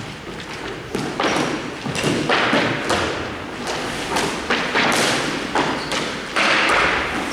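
A series of irregular thuds and knocks mixed with short bursts of scraping noise.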